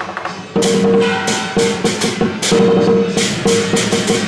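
Lion-dance percussion band playing: drum beats with clashing cymbals and a held ringing tone under them, in a steady rhythm. It drops back at the start and comes in again at full strength about half a second in.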